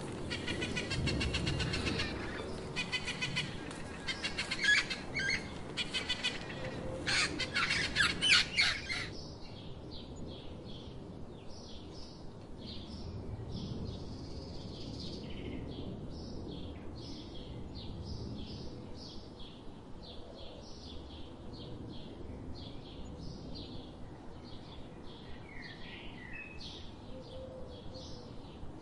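A flock of budgerigars chattering in rapid high chirps and warbles, cutting off abruptly about nine seconds in. After that, quieter wild songbirds sing in short, scattered chirps.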